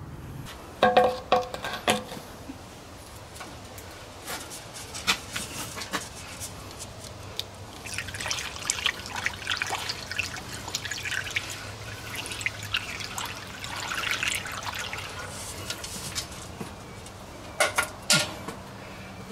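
Amber liquid poured through a plastic funnel into an old garden tractor's metal fuel tank, splashing and trickling unevenly for several seconds in the middle. A few sharp knocks of handling come about a second in and again near the end.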